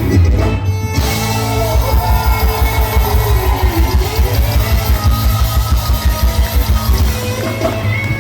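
Live gaúcho band music in an instrumental passage: a fast, steady bass beat under a lead line that slides down in pitch and back up.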